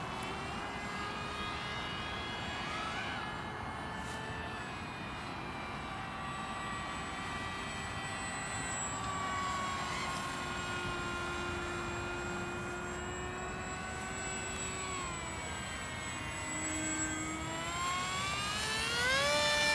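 Small electric RC flying wing's brushless motor (2204 2200kv) and 6x3 propeller whining in flight. The steady whine sags a little in pitch around the middle, dips, then climbs steeply near the end as the throttle is opened.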